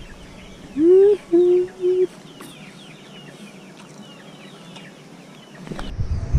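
A chicken clucking three times in quick succession about a second in, while small birds chirp throughout.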